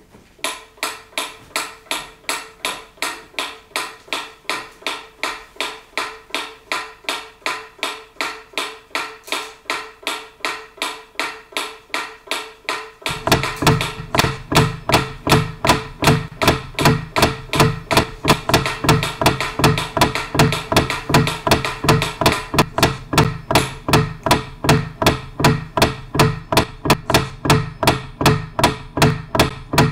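Rhythmic music built from repeated sharp, pitched percussive notes, about two a second. About 13 seconds in, a louder, lower part joins and the pulse gets denser.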